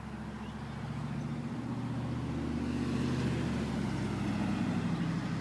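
A passing motor vehicle's engine hum, growing steadily louder as it approaches and peaking about two-thirds of the way through.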